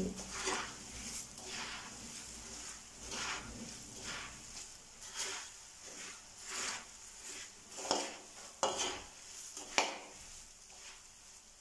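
Metal spatula stirring puffed rice in a steel pan: repeated rustling, scraping strokes, with a few sharper clinks of the spatula against the pan in the second half.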